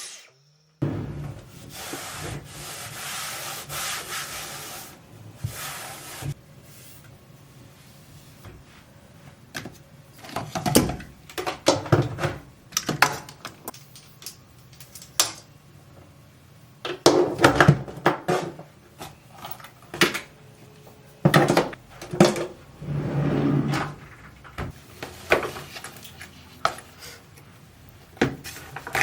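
Household handling sounds: a steady hiss for a few seconds near the start, then scattered knocks, clatters and rubbing of objects being handled and set down.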